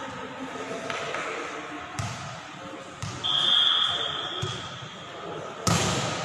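Volleyball referee's whistle blown once, one held high note of about a second, followed a couple of seconds later by the sharp smack of the ball being hit, the loudest sound, echoing in a large sports hall. A couple of duller ball knocks come before the whistle.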